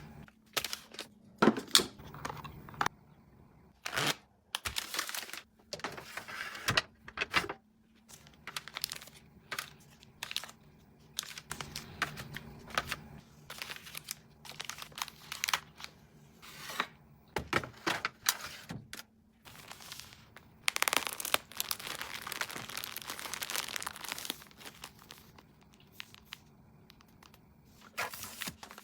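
Plastic packaging crinkling and tearing, with clicks and knocks of containers and items being handled, under a faint steady hum. A longer stretch of continuous rustling comes about two-thirds of the way through.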